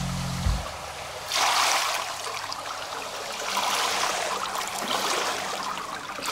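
Swimming-pool water splashing and lapping as a swimmer surfaces at the edge and swims breaststroke, in several surges of splashing.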